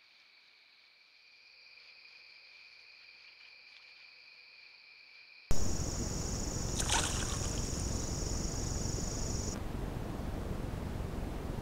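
Trail camera recordings. A faint steady high-pitched whine is heard first. About five seconds in, at a cut, it switches to a much louder steady hiss carrying a high steady tone, which stops about four seconds later. There is a brief sharp sound about a second after the cut.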